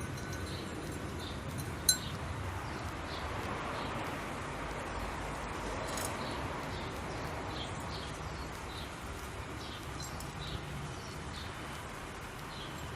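Quiet outdoor garden ambience with small birds chirping faintly, short high notes every second or so, and a single sharp click about two seconds in.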